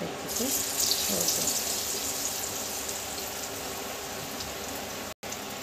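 Besan-battered bread pakora sizzling in hot refined oil: the hiss comes up about a third of a second in, as the slice goes into the oil, and keeps up steadily as it fries.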